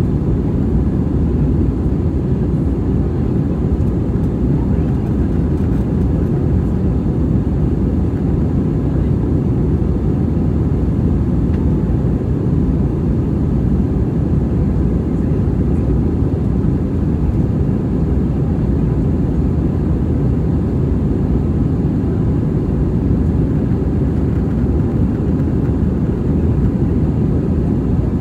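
Steady low rumble inside the cabin of an Airbus A320 in flight: engine and airflow noise heard from a window seat over the wing.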